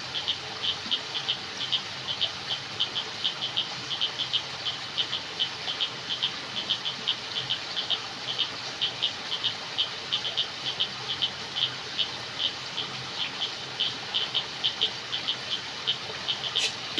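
Night chorus of frogs and insects: short, high chirps repeating several times a second over a steady hiss. There is a single brief click near the end.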